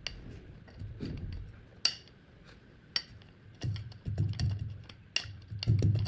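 A blade chopping through kinetic sand, each cut ending in a sharp tap against the surface below with a soft low thud. A few widely spaced taps come first, then quicker, closer cuts from a little past halfway.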